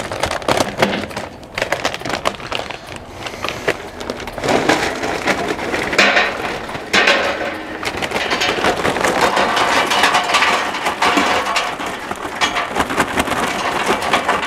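Charcoal poured from a paper bag into an offset smoker's steel firebox, the pieces clattering and crunching onto the grate and each other. The pouring is heaviest from about four seconds in.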